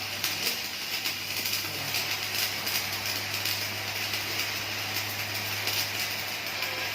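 Electric arc welding on steel C-channel: a steady crackling hiss from the arc with irregular sharper crackles, over a low steady hum.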